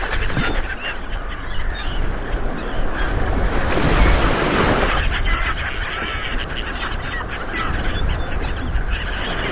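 Ocean waves rolling onto a shore, one surge swelling about four seconds in, with scattered short bird calls above the surf.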